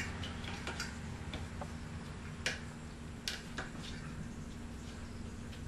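Scattered sharp clicks and taps, irregular and a second or so apart, from plastic rim protectors being fitted onto a motorcycle wheel rim, over a low steady hum.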